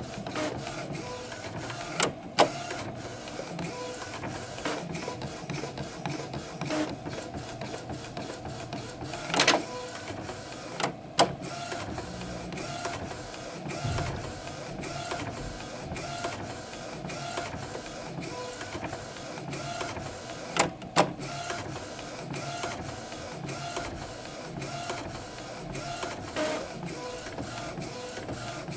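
Epson Stylus Photo R270 inkjet printer running its calibration routine: the print-head carriage and mechanism whir and click steadily. Loud sharp knocks come about two seconds in, twice around ten to eleven seconds, and twice near twenty-one seconds. This is the kind of knock that the owner links to printing drifting to the left.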